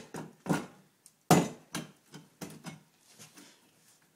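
Crowbar forcing the knob of a locked bathroom door: a series of sharp metal-on-wood knocks and clanks, the loudest about a second and a half in, tapering to faint taps. The handle is being broken to open the locked door.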